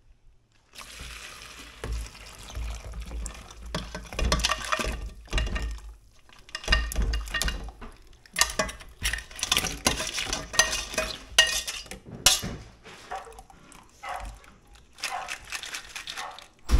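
Crab stock being strained: broth and boiled crab shells poured from a stainless steel pot into a wire mesh strainer, with liquid splashing, shells rattling and metal clinking against metal in irregular bursts.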